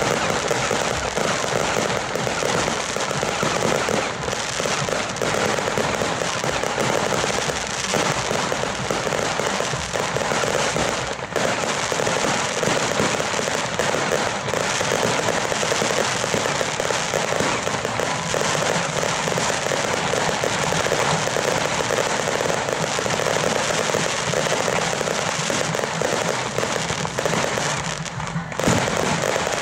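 Fireworks going off in a dense, unbroken crackle of bangs and pops. Shortly before the end there is a brief lull, then a single loud bang.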